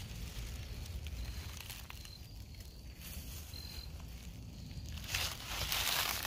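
Outdoor trail ambience: low wind rumble on the microphone with footsteps rustling through leaves, the rustling growing louder after about five seconds.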